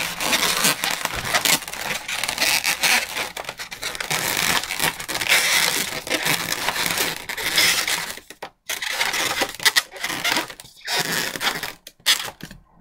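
Inflated latex 260Q modelling balloons being twisted and rubbed together by hand: a steady, scratchy rubbing, with a few short pauses in the last few seconds.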